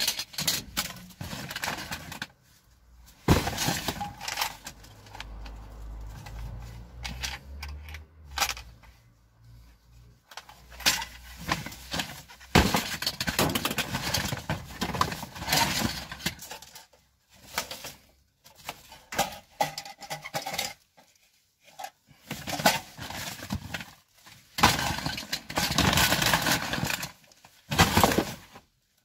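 Rummaging through rubbish by hand: a plastic bag crinkling and small hard objects knocking and clinking together in irregular bursts, with short pauses between. A low rumble sits under it for a few seconds early on.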